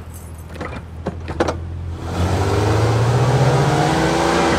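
Car engine heard from inside the cabin: a low steady hum with a few sharp clicks, then about two seconds in it grows louder and slowly rises in pitch as the car accelerates.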